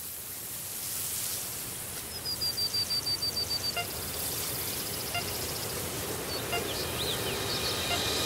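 Wind and road noise on a car-mounted camera as the car drives along, with a rapid high chirping trill of about ten notes about two seconds in.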